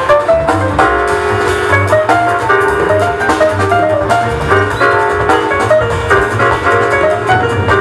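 Live jazz quartet playing: a quick line of bright pitched notes over a walking double bass and a drum kit.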